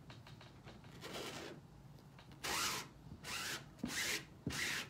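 A squeegee scraping chalk paste across a silkscreen transfer on a board. One faint stroke comes about a second in, then four quicker, louder strokes about two-thirds of a second apart in the second half.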